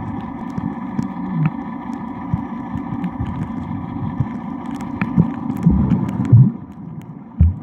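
Muffled underwater sound through a waterproof camera housing: a steady low rumble of moving water with a faint steady hum, broken by dull thumps and knocks that get louder in the second half, the loudest near the end.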